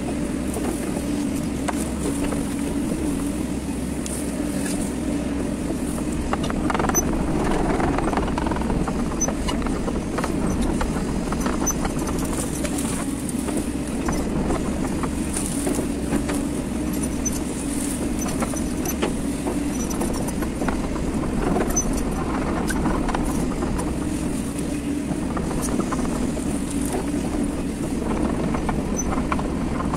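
Hyundai hydraulic excavator's diesel engine running steadily while the bucket digs, heard from the cab, swelling louder around seven seconds in and again around twenty-one seconds in.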